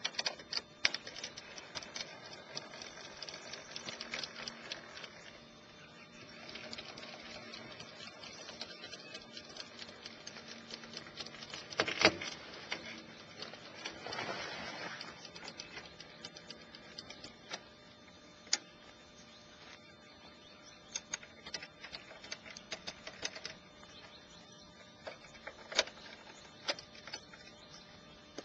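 Scattered clicks, clunks and rattles of a tray-top camper's metal lid, hinges and fold-out floor being worked by hand, with rustling of the canvas tent as it is pulled out, all sped up to double speed. One sharp knock near the middle is the loudest, followed by a couple of seconds of rustling.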